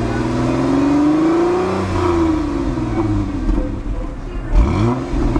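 Exhaust of a 2002 Chrysler Sebring Limited Convertible's 2.7-litre V6, revved with the car standing still. The revs climb slowly for about two seconds and fall back, then a second, quicker rev comes about four and a half seconds in.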